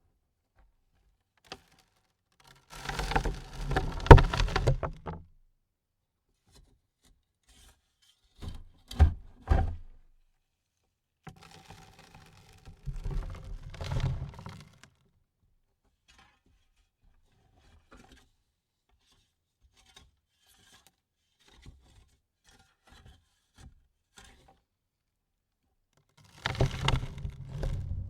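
Shovelfuls of soil thrown onto a coffin lid: four loads land, each a rush of falling dirt with heavy thuds, the loudest at about four seconds in. Between the loads, scattered small ticks of stray clods and grains.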